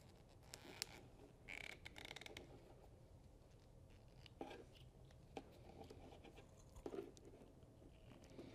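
Faint handling noises of diesel-heater parts being taken apart: a short scraping rustle a couple of seconds in, then a few light clicks and knocks, over quiet room tone.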